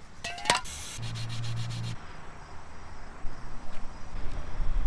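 Scraping and rubbing on a plastic intake adapter as epoxy is pushed into its thin middle section, with a brief squeak near the start and a run of scratchy ticks in the first two seconds.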